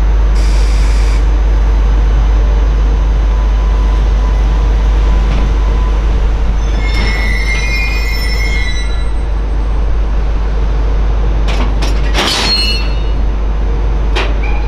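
A freight train moving slowly through a station: an EH800 electric locomotive propelling a container flatcar, with steady running noise and a low hum. Wheel flanges squeal on the rails about seven to nine seconds in, and a cluster of metallic clanks with more squeal comes about twelve seconds in.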